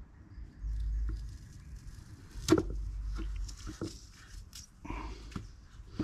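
Small clicks and rustling as copper winding wire is worked off a microwave turntable motor's plastic bobbin by hand, with one sharp click about two and a half seconds in and lighter ticks after it.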